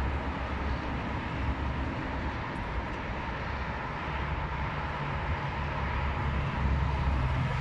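Road traffic: cars driving past, a steady mix of engine and tyre noise with a deep rumble underneath.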